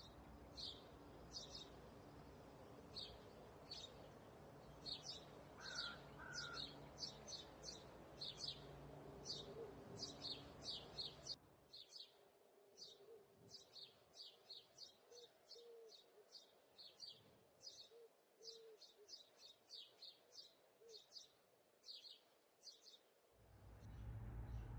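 Small birds chirping: short, high chirps repeated a few times a second, over a faint low hum that cuts out about halfway through.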